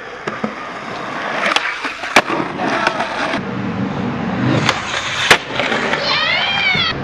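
Skateboard rolling on pavement, the wheel rumble building up, with sharp clacks of the board hitting the ground about two seconds in and again past five seconds.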